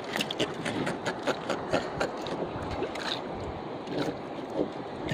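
Water lapping against the hull of a small boat, with scattered small clicks and knocks from a fish and handline being handled on the deck.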